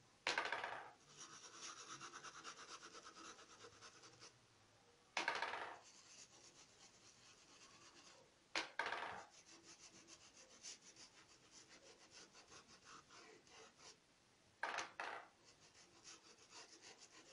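Paintbrush bristles scrubbing across a cotton towel, spreading thinner to dampen the fabric: faint runs of quick back-and-forth scratchy strokes, with a few louder single swipes a few seconds apart.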